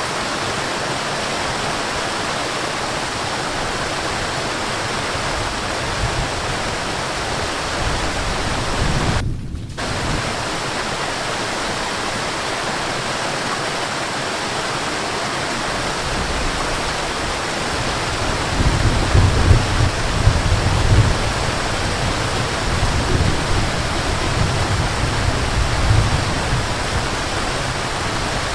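Waterfall rushing steadily, a continuous even noise of falling water. It breaks off briefly about nine seconds in, and deeper rumbling swells come and go in the second half.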